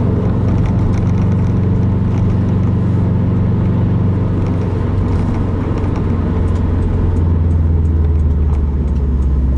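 Subaru WRX turbocharged 2.5-litre flat-four with an Nvidia Q300 cat-back exhaust, a steady low exhaust drone heard from inside the cabin while driving. Its pitch eases down a little about halfway through. A light rattle comes from the loose action-camera cover.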